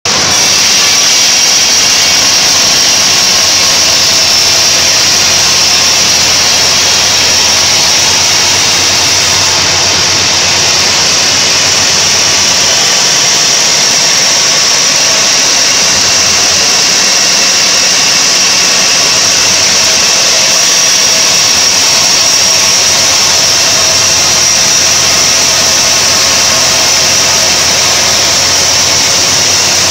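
Homemade band sawmill ripping a mahogany log lengthwise, the saw running loud and steady with a high whine over the machine's hum.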